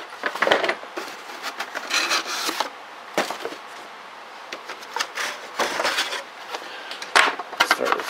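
Cardboard packing inserts being pulled and slid out of a cardboard box: irregular scraping and rustling with a few sharp knocks, loudest about half a second in, around two seconds and near seven seconds.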